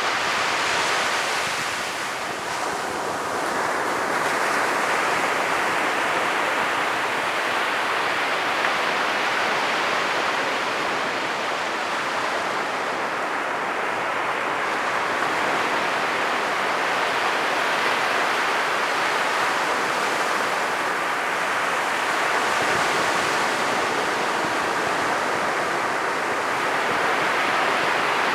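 Ocean surf breaking on a sandy beach: a continuous wash of noise whose hiss swells and eases every several seconds as waves come in.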